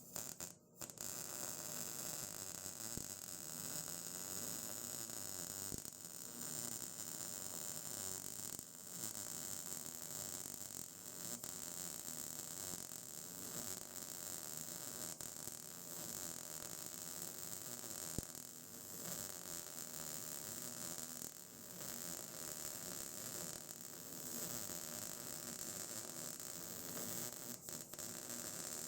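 MIG welder's arc laying a bead on steel with the shielding gas now on: a steady crackling sizzle that starts about a second in, with an occasional sharp pop.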